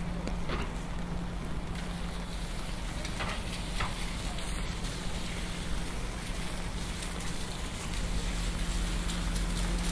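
Rainy city street ambience: steady traffic rumble with a low hum and a hiss of rain, with a few faint clicks. The low rumble grows louder about eight seconds in.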